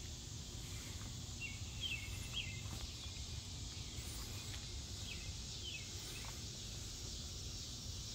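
Outdoor ambience: a steady low rumble and a high hiss, with a few short chirps from a small bird scattered through it.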